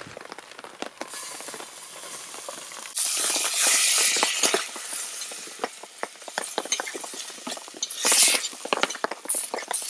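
Cubes of oiled beef sizzling with steam in a steel pot over a campfire, the hiss rising sharply about three seconds in and flaring again near the end, while a spoon scrapes and clinks against the pot as the meat is stirred.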